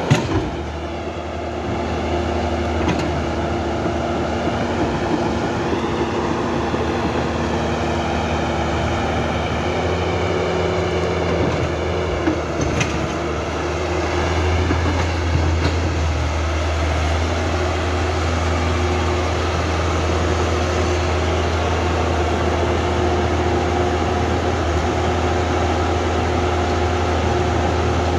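Huina toy remote-control excavator's electric motors and gears whirring steadily as it works the sand, with a few sharp clicks.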